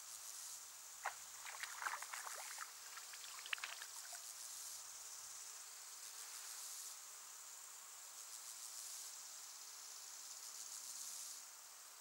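A cricket-like insect trills high and steadily in phrases of about two seconds, broken by short gaps. Between about one and four seconds in, a flurry of small water splashes and drips marks a frog lunging in the pond.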